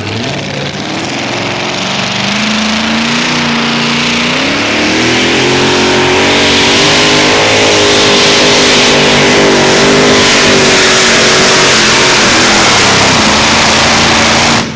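A pulling truck's engine at full throttle during a pull. It climbs in pitch in steps over the first few seconds, then holds high and loud, and cuts off suddenly at the very end.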